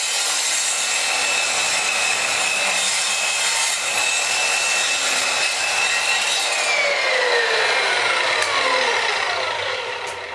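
Parkside 2000 W sliding mitre saw cutting, with the motor's steady high whine under the noise of the blade in the wood. After about six and a half seconds the whine falls steadily in pitch as the blade spins down, and the sound fades near the end.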